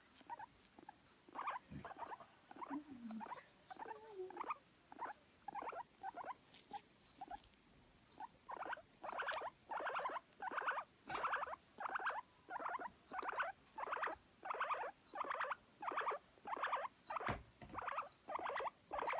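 Guinea pig making its affectionate, attention-seeking calls: short repeated squeaks, irregular and softer at first, then settling about halfway into a steady, louder run of about two a second.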